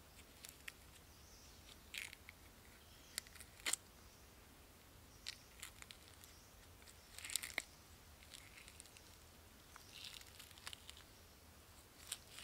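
Faint, irregular crunches and crackles of dry leaf litter and twigs underfoot, a dozen or so sharp snaps scattered unevenly, the loudest about a third of the way in and just past the middle.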